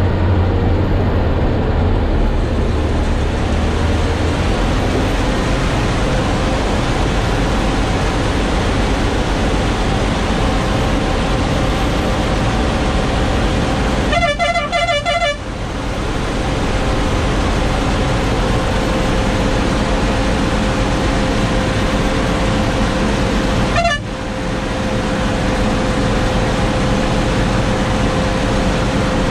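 Truck's diesel engine running steadily as it climbs, heard inside the cab. The horn sounds twice: a blast of just over a second about halfway, then a short toot near the end.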